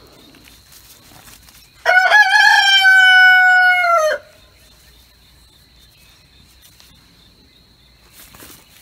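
A rooster crows once, about two seconds in: a single call a little over two seconds long, wavering at the start, then held and dropping off at the end.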